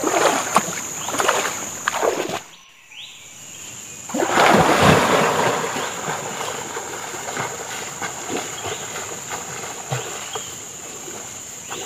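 Water splashing and sloshing in irregular surges, loudest about four seconds in, over a steady high-pitched insect drone.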